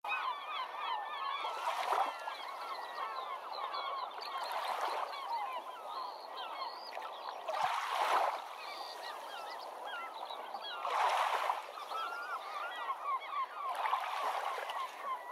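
A large flock of birds calling continuously, many short calls overlapping into a din that swells louder every three seconds or so.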